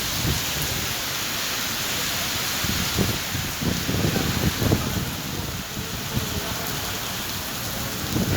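Heavy rain pouring down in a steady, dense hiss, with a few irregular dull thumps from about three to five seconds in.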